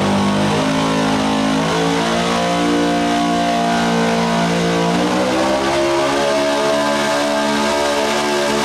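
Pulling truck's engine running at high revs under load as a square-body pickup drags a weight-transfer sled. Its pitch dips about five seconds in, then climbs again.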